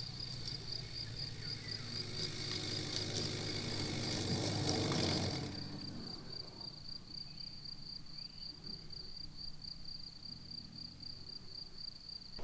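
A small van's engine runs as it drives along a grassy track, then stops abruptly about five and a half seconds in. An insect, cricket-like, trills in a steady high pulsing note throughout.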